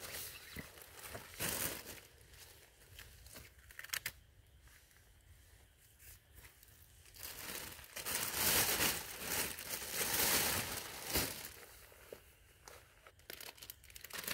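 Plastic bags crinkling and rustling as they are handled, loudest for a few seconds in the middle, with a few sharp clicks before that.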